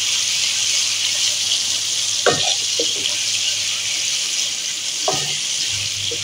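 Garlic-ginger paste sizzling steadily in hot oil in a wok, stirred with a wooden spatula that scrapes and knocks against the pan a few times.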